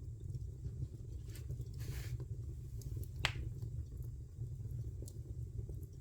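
Wood fire burning in a fireplace: a steady low rumble of the flames with a few faint crackles, a short hiss about two seconds in, and one sharp pop a little past the middle.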